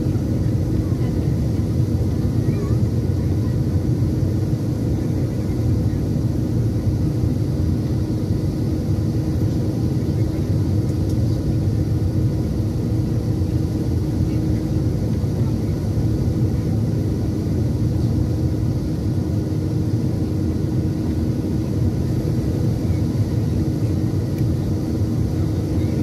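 Steady cabin noise inside a Boeing 737-800 on final approach: the low rumble of its CFM56-7B turbofans and the rush of air past the fuselage, with a steady hum running through it.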